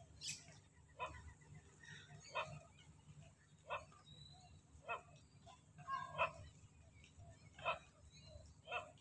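An animal calling in short, evenly spaced calls, about one every second or so, fairly faint over a low steady rumble.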